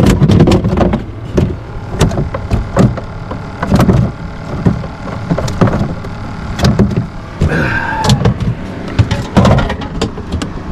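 Wake from passing motorboats slapping and knocking against a small fishing boat's hull in irregular thumps, over the steady low hum of a boat engine.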